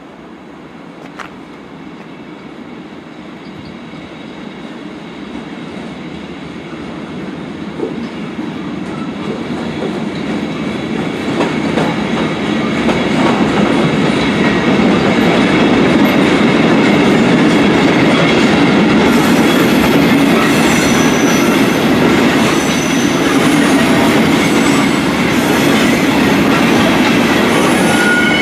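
Electric-hauled freight train of covered goods wagons passing close by: a rumble of wheels on rails with clickety-clack. It grows louder over the first dozen seconds as the train approaches, then holds steady, with short high wheel squeals in the last third.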